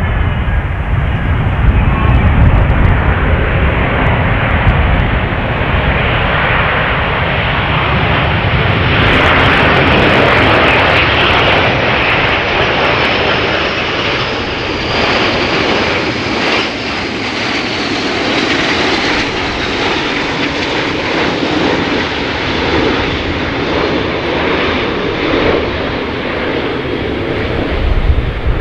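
Jet trainers flying over in formation: a continuous jet engine rush, brightest about ten seconds in, then slowly fading.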